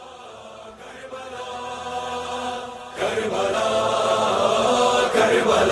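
Devotional vocal music: a wordless chorus of held, chanted voices, soft at first and swelling much louder about three seconds in, leading into a song about Karbala.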